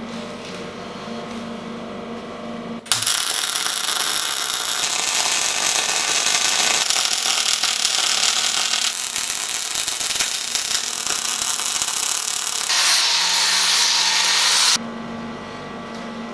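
MAG (gas metal arc) welder arc crackling and sputtering as a weld bead is laid on steel, starting about three seconds in and cutting off abruptly near the end. Before and after the weld, a steady low hum.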